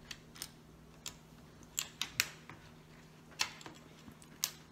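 Small plastic Lego bricks being picked up and set down on a wooden tabletop: a string of about eight sharp, irregular clicks and taps.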